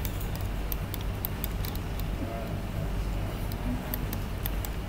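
Steady low hum with scattered faint clicks of a computer mouse, clicked and scrolled while zooming and panning a drawing.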